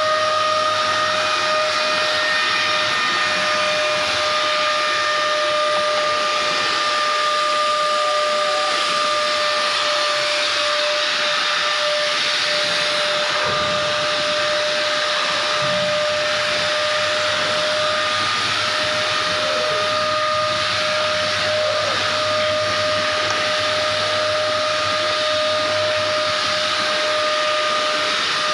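Vacuum cleaner running steadily: a high motor whine over a rushing hiss of air.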